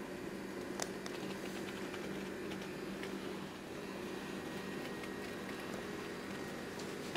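Room tone: a steady low mechanical hum, with a few faint clicks, the clearest about a second in.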